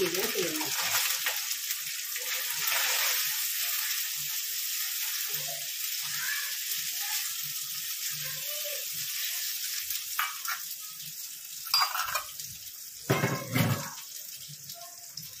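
Chopped onions sizzling as they fry in hot mustard oil in a kadai, the sizzle strongest at first and fading over about ten seconds. Two short knocks near the end.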